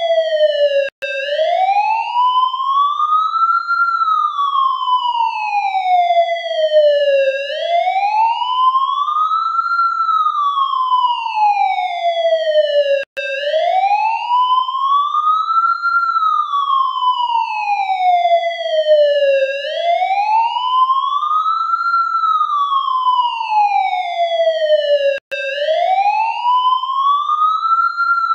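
Ambulance siren in wail mode: one tone slowly rising and falling, each rise and fall taking about six seconds. The sound breaks off for an instant three times, about twelve seconds apart.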